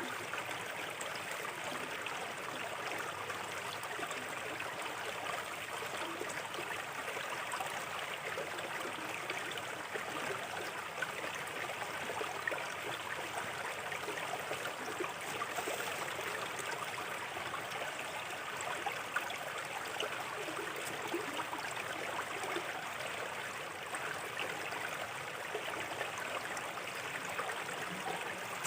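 Small river flowing steadily over stones, a constant rushing babble with small gurgles.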